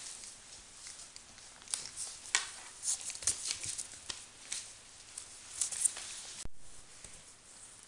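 Newspaper rustling and crinkling in irregular bursts under a Border Collie puppy's paws as it scrambles and tugs at a wool sock. A single sharp click comes about six and a half seconds in.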